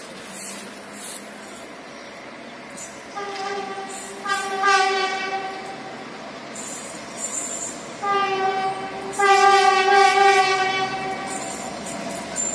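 EMD GL8 (Tunisian DF-class) diesel-electric locomotive sounding its horn in two long blasts, the first starting about three seconds in and the second about eight seconds in, each lasting about three seconds.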